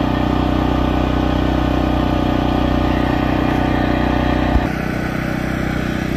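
An engine running steadily with a low hum. About four and a half seconds in there is a click, and the low rumble drops a little.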